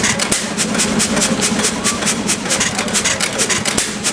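Amanco 8 HP Mule Team horizontal petrol hit-and-miss stationary engine running, its valve gear clicking in a fast even rhythm of about five or six clicks a second over a steady low hum. The clicks fade briefly near the end.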